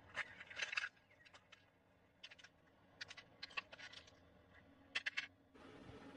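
A brittle shell being cracked and peeled apart by hand: several short bursts of crackling snaps. Near the end a steady hiss comes in.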